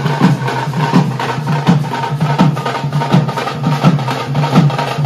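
A group of drummers beating barrel drums with sticks in a fast, loud rhythm, with heavy accented beats about two or three a second and quicker strokes between them.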